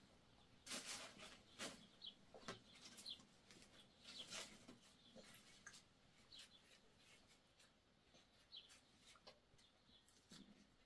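Quiet rural ambience: faint short bird chirps and scattered light clicks and rustles, the loudest about a second, two seconds and four seconds in.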